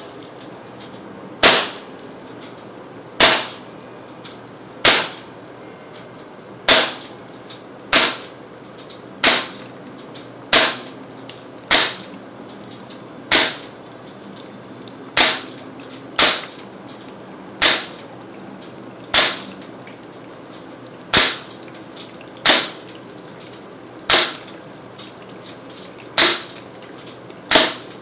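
Sig Sauer M17 .177 CO2 pellet pistol firing single shots into a water-filled plastic milk jug: about eighteen sharp cracks, one every one to two seconds.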